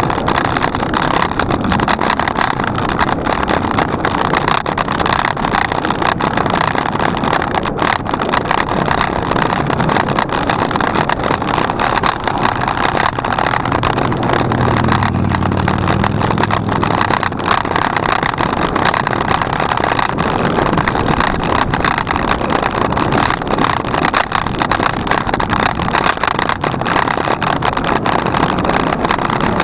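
Steady rushing noise of riding a bicycle: wind on the microphone and the tyres running over the path, with small knocks and rattles throughout. About halfway through, a lower hum swells and fades.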